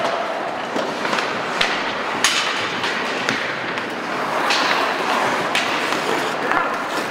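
Ice hockey play: skate blades scraping and hissing on the ice, broken by a run of sharp clacks and knocks from sticks, puck and boards, about one every second.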